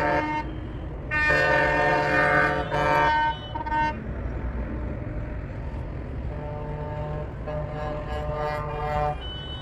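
Vehicle air horns honking over a steady low rumble: a loud long blast about a second in, two short ones after it, then quieter, longer honking.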